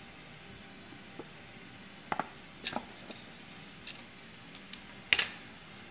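Scattered light taps and clicks from hands handling an opened cardboard Honor 6X box and the plastic-wrapped phone inside it. The loudest is a single sharp knock about five seconds in.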